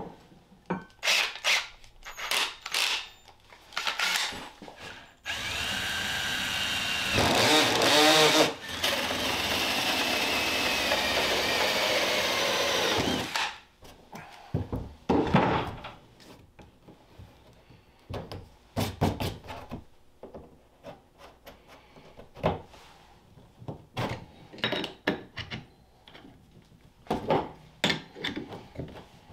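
Cordless drill driving a 2 1/4-inch hole saw through the thick polyethylene wall of an RV holding tank. It runs steadily for about eight seconds, with a brief break partway, then winds down. Before and after come scattered clicks and knocks of tools being handled.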